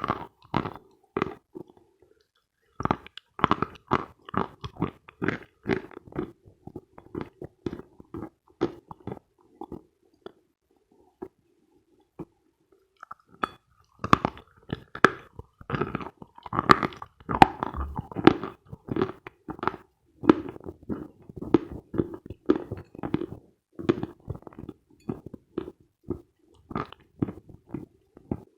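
Close-miked chewing of dense, dry Khrapovsky chalk: many quick, crisp crunches, a pause of a few seconds partway through, then faster crunching.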